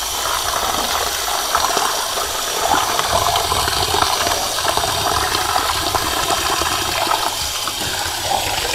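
Tap water running steadily into a stainless steel sink, splashing irregularly over a freshly gutted chicken being rinsed.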